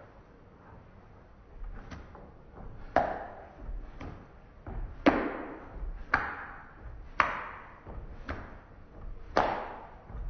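A regular series of sharp knocks, about one a second, each followed by a short ringing tail. The loudest come about five and nine seconds in.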